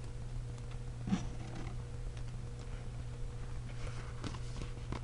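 Hands handling a sheet of stickers and paper: a few light rustles and small ticks as a sticker is peeled and placed, over a steady low hum.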